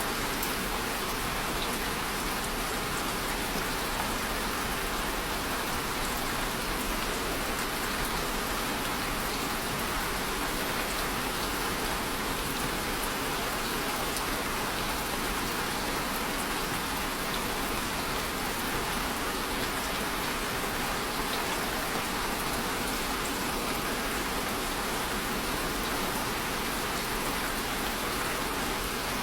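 Steady rain falling on a surface, an even, unbroken hiss without thunder.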